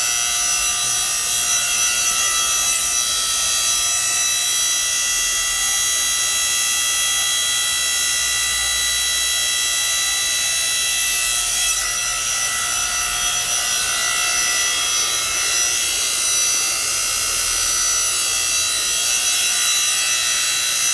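3 hp electric motor and hydraulic pump of a 7-ton log splitter running with a steady high whine while the ram pushes a log to split it.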